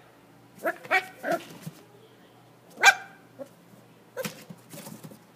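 Puppy barking in short, high yips: three in quick succession about a second in, a louder single yip near the middle, then a few weaker ones near the end.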